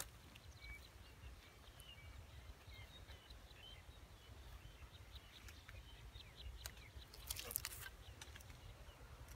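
Faint small birds chirping in the background over a low steady rumble, with a short cluster of clicks and rustles about seven seconds in.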